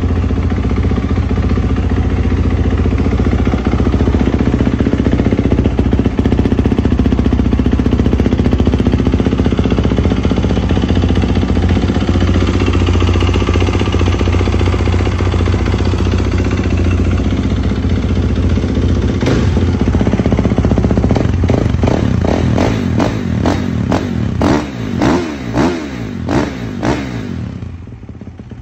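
2021 Kawasaki KX450 motocross bike's single-cylinder four-stroke engine idling steadily after a cold start. In the last third it is revved in a string of quick throttle blips, the pitch rising and falling with each. Near the end it drops back much quieter.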